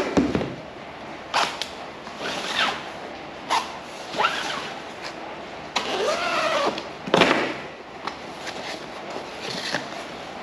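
Cardboard box being opened: a blade slitting the packing tape, then the flaps and paper packing rustling, in a series of short scraping strokes. About six seconds in comes a longer, squeaky scrape.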